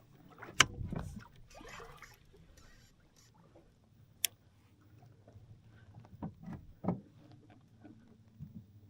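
Knocks and clunks of gear against a fishing kayak's hull, with a sharp click about four seconds in.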